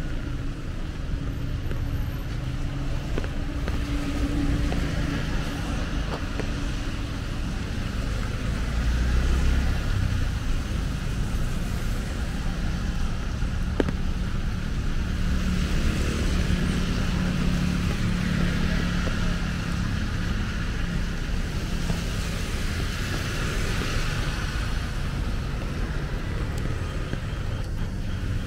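Steady road traffic on a rain-wet street: cars passing, with a constant low rumble and an engine hum that rises for a while past the middle.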